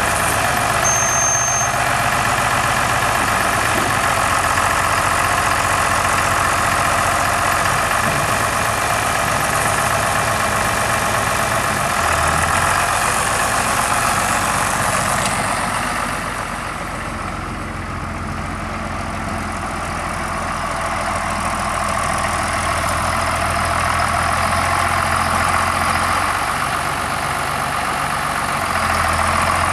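John Deere 4230 tractor's six-cylinder turbo diesel engine running steadily, a little softer for a few seconds past the middle.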